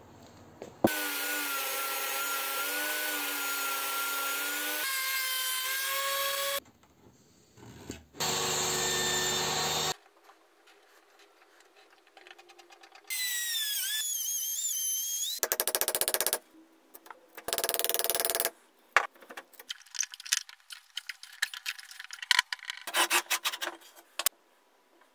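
A string of woodworking power tools working pine boards in quick cuts. First a machine runs steadily with a held whine for about six seconds, then a second machine runs briefly. After a short quiet pause comes a whine that wavers up and down, then two short bursts. Near the end there is a run of sharp clicks and knocks.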